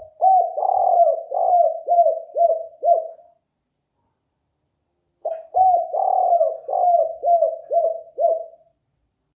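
Spotted dove (derkuku/balam) cooing: two full calls of the kind bird keepers call 'kuk 4', each a run of low coo notes ending in several short dropping notes. The first starts at once and the second starts about five seconds in.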